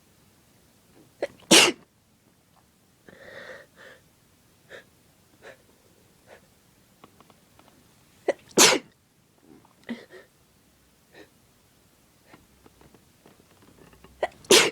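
Three loud human sneezes about six to seven seconds apart, each set off by a quick catch of breath, with sniffles and breathing between them. The sneezes are brought on by sniffing ground pepper.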